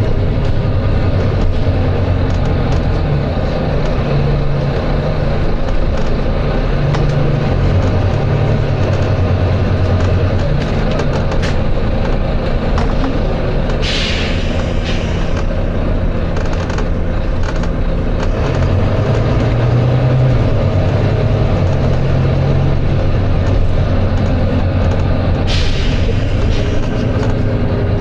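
Volvo B9TL double-decker bus's six-cylinder diesel engine running under way, its note shifting up and down, with two short sharp hisses of air from the bus's pneumatic system, one about halfway through and one near the end.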